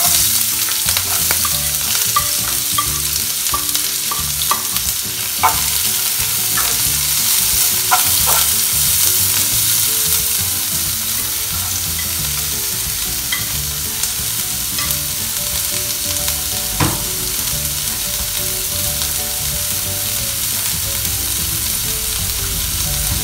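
Chopped onions frying in hot oil in a nonstick frying pan: a steady sizzle with scattered small pops, and one sharper click about two-thirds of the way through.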